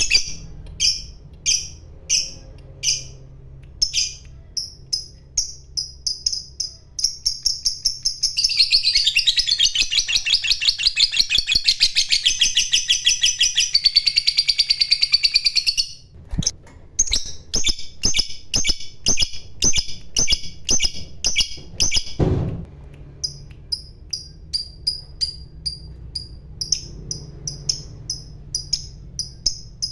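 Lovebird calling: sharp, high chirps repeated a few times a second speed up into one long, rapid chattering trill (the 'ngekek') of about seven seconds, then break back into quick chirps. A single low thump sounds about two-thirds of the way through.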